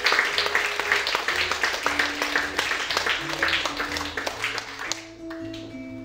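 Audience applause over fingerpicked acoustic guitar notes; the clapping dies away about five seconds in, leaving the guitar playing on its own.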